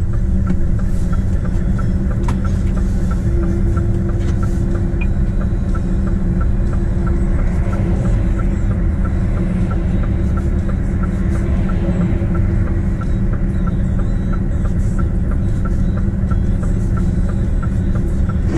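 Heavy truck's diesel engine idling, heard inside the cab as a steady low rumble, with the turn indicator ticking evenly at about two ticks a second.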